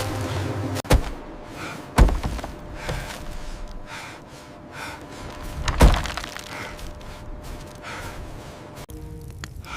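Three heavy thuds, about one, two and six seconds in, the last one loudest, over a low steady background.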